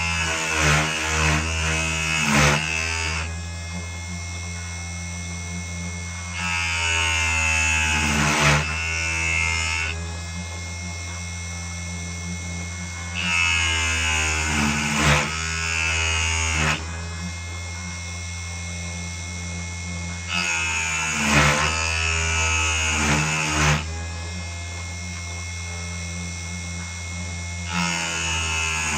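Small hobby CNC lathe, converted from a CNC1610 machine, running a machining test: a steady low motor hum under repeated cutting passes. Each pass is a louder, higher-pitched stretch of about three and a half seconds, coming round about every seven seconds.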